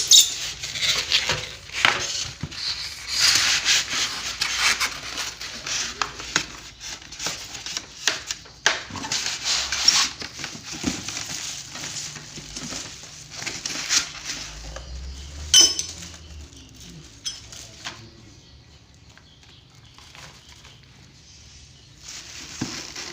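Rustling and clattering of tools and their packaging being handled: plastic wrapping crinkling and hard pieces knocking together. It is busiest in the first half, with a sharp click a little past the middle, and gets quieter after that.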